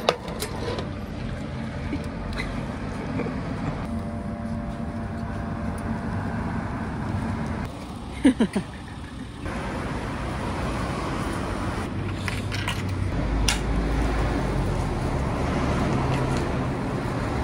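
Cup Noodle vending machine running with a steady hum while it dispenses hot water into the cup, cutting off about eight seconds in. Then steady outdoor background noise with a low rumble.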